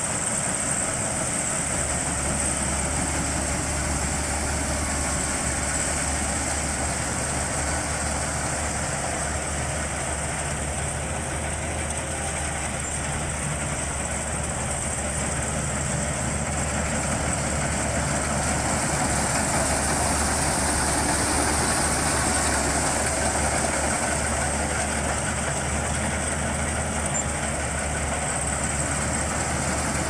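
Maxxi Bimo 102L rice combine harvester running steadily while cutting and threshing ripe rice, its engine and threshing mechanism making a continuous mechanical drone. It grows a little louder about two-thirds of the way through as the machine comes closer.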